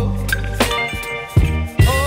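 Background music in a funk/soul style, with drum hits, a bass line and a melodic lead.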